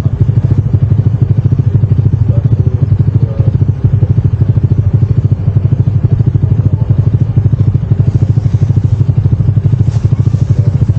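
Keeway V250's V-twin engine idling, a steady and evenly pulsing low beat.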